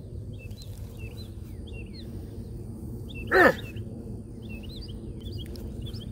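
Small birds chirping in quick repeated notes over a steady low background rumble. About three and a half seconds in comes one short, loud vocal sound that falls in pitch.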